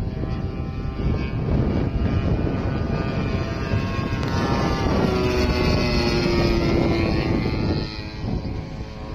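Radio-controlled Edge 540 model aerobatic plane's motor and propeller running in flight, the pitch falling as it passes about five seconds in and the sound dropping a little near the end. Wind rumbles on the microphone underneath.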